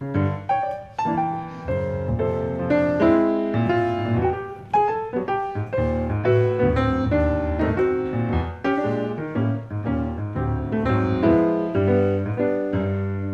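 Grand piano playing a jazz introduction of chords and melody lines, with sustained low notes underneath.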